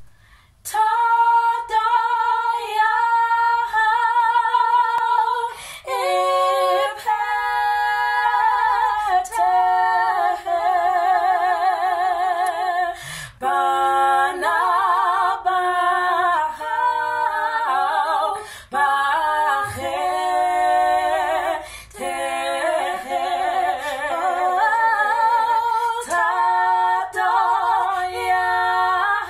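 Two women singing a cappella, long notes held with a wide vibrato.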